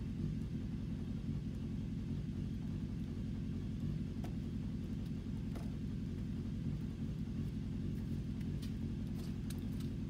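A steady low rumble, with a few faint clicks in the second half.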